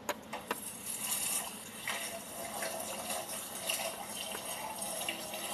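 Water running from a tap into a sink, as for washing dishes, with two sharp clicks just at the start.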